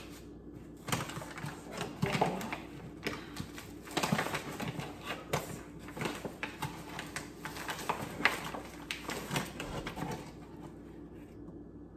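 Paper flour bag rustling and crinkling as a plastic measuring cup scoops flour out of it, with irregular scrapes and taps from about a second in until near the end.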